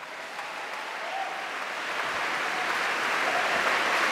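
Audience applause, growing steadily louder.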